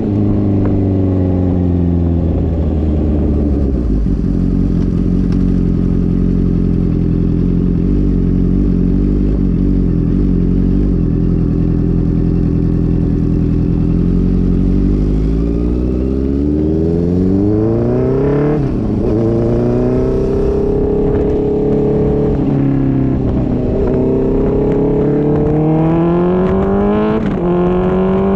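Honda CB650F inline-four running through a Mivv MK3 straight-through full exhaust with no catalytic converter. The engine note drops early on and holds steady for about ten seconds. It then climbs, falls away sharply, and climbs again several times.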